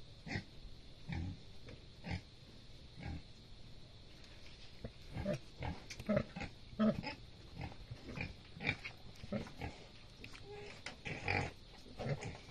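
Pigs grunting and squeaking in many short calls, sparse at first and coming thick and fast from about five seconds in: a sow lying with her newborn piglets suckling.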